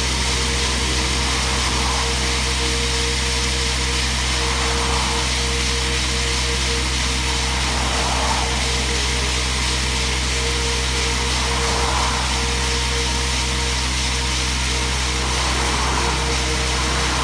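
Diesel road-coring rig running with its hydraulic motor turning a 300 mm core barrel, cutting wet into the asphalt: a steady engine drone under a continuous grinding hiss.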